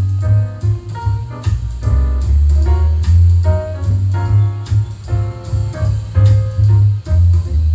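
Instrumental music with piano, drum kit and a heavy bass line, played back through Edifier 1280 bookshelf speakers driven by a Breeze Audio F1 MK2 amplifier.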